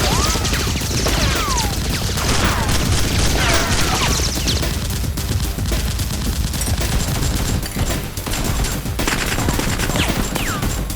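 Sustained rapid gunfire, many shots overlapping in a continuous fusillade. A few short falling whistles are heard among the shots.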